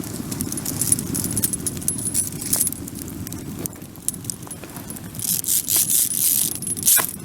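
Wood bonfire crackling, with many sharp pops and snaps over a low steady rumble; the crackle thickens into a hissing flurry about five seconds in.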